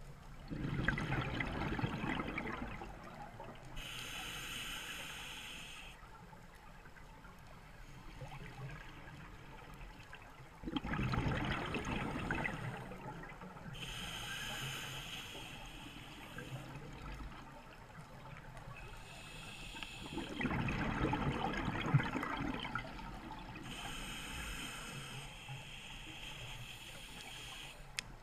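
Scuba diver breathing through a regulator underwater: three slow breath cycles, each a gurgling rush of exhaled bubbles followed by the thinner hiss of the regulator on the next inhalation.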